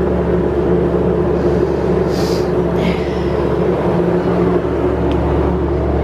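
Steady machinery hum at a constant pitch, loud and unchanging, with a brief hiss about two seconds in.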